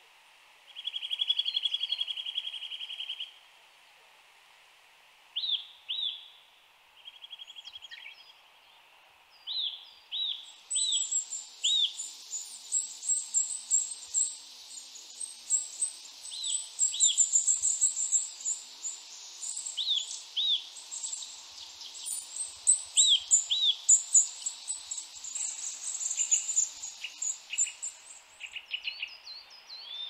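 Eurasian nuthatch singing: a fast trill for about two seconds, a shorter trill a few seconds later, then loud whistled 'fwee' notes repeated in twos and threes. From about ten seconds in until near the end, a much higher, dense twittering runs alongside.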